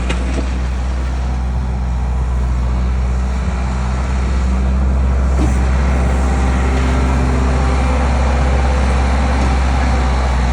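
Skid steer engine running steadily under load, a little louder about four seconds in.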